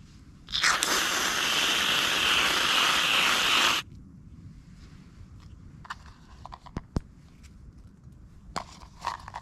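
An aerosol can of whipped cream sprays in one loud hissing spurt of about three seconds, starting about half a second in and cutting off sharply. Light clicks and taps follow, with one sharp click about seven seconds in.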